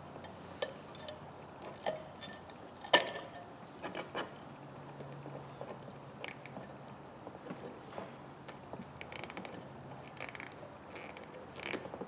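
Small metal clicks and taps from the parts of a pair of diagonal cutters being worked apart by hand, scattered and irregular, with one louder click about three seconds in.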